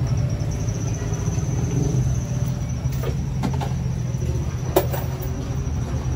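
Street background dominated by a steady low engine hum, with a few light clicks and knocks scattered through it.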